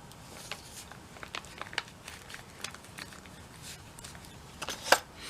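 Small hand tools and drill bits being handled: a series of light clicks and taps, with one sharper knock near the end.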